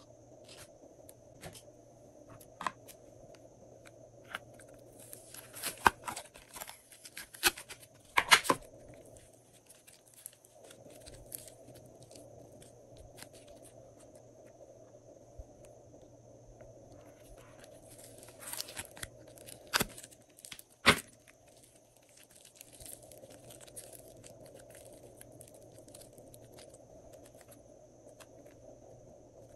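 Slime being worked and squeezed with plastic piping bags: scattered sticky pops, crackles and plastic crinkling, in louder clusters about five to eight seconds in and again around eighteen to twenty-one seconds in, over a faint steady hum.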